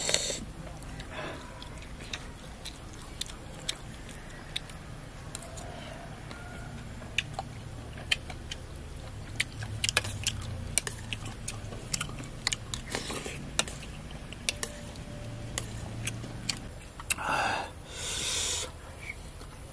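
A person eating up close: chewing with frequent sharp clicks over a low steady hum, and two short breathy noises near the end.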